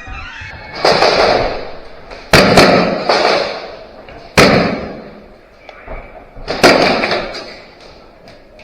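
A series of loud sharp bangs, about five, one of them a quick double, each ringing out in a long echo through a large hard-walled building.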